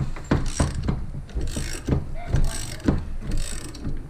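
Ratchet wrench cranking the threaded rod of a coil spring compressor, the pawl clicking in a burst on each return swing about once a second, with sharp knocks of metal on metal between strokes. The spring is being compressed.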